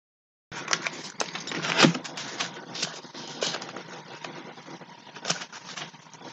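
Irregular clicks, taps and rustling of hands handling things right next to the microphone, with one louder knock about two seconds in.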